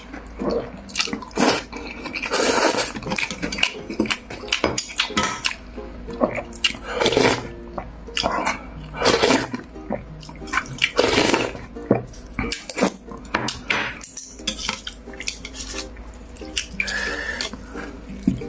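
Eating sounds of cold noodles in icy broth: repeated slurps and chewing, with utensils clinking against the bowl.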